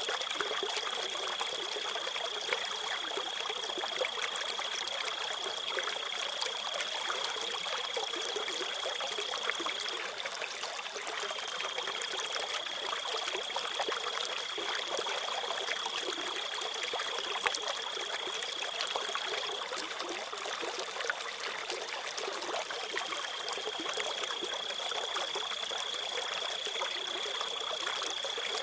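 Crickets trilling steadily on one high pitch over a trickling stream. The trill breaks off briefly about a third of the way in and again about two-thirds in.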